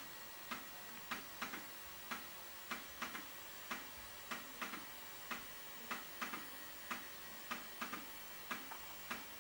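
Floppy disk drive clicking as it reads a music module from disk, its head stepping in sharp, irregular clicks about twice a second, each a short low knock with a high tick.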